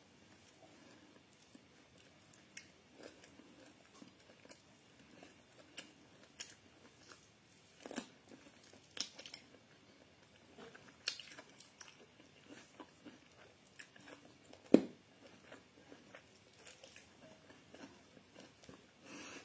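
A person eating barbecued meat and bread: soft chewing and biting with small mouth clicks and smacks, scattered unevenly. A single sharp knock about fifteen seconds in is the loudest sound.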